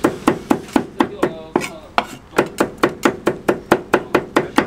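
Two cleavers chopping green chili peppers on a thick wooden chopping block: a fast, even run of knocks, about four or five a second, with a short break about a second in.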